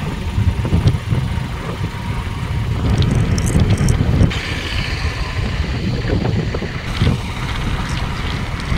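Wind buffeting the microphone in a steady low rumble while riding along a road, with the vehicle's running noise underneath.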